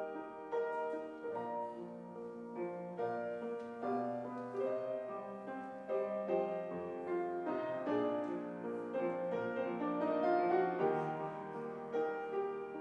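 A clarinet playing a classical piece with grand piano accompaniment, a steady flow of sustained melodic notes over the piano.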